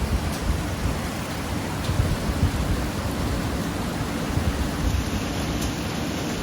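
Heavy rain pouring in a thunderstorm, with a low rumble underneath that swells a few times in the first half.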